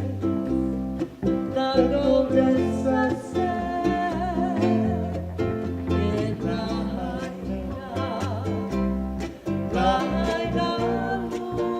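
Hawaiian band playing: a singer over plucked guitar and ukulele, with a bass line underneath.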